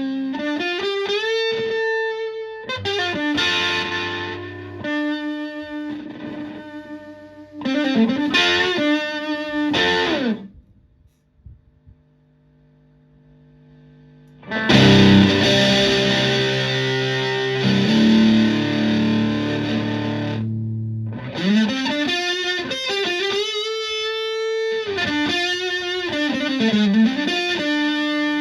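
Electric guitar played through a Violet Ram's Head Big Muff fuzz pedal with its second diode pair set to germanium asymmetrical clipping: fuzzed lead phrases with notes bent up in pitch, a pause of about four seconds midway, then held fuzz chords and more bent lead notes.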